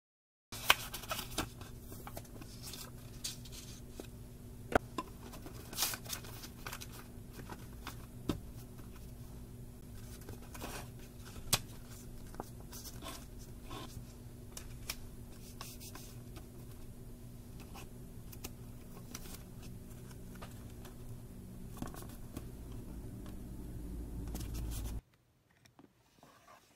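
Hands handling spiral-bound notebooks and slips of paper: scattered taps, clicks and paper rustling over a steady low hum, cutting off near the end.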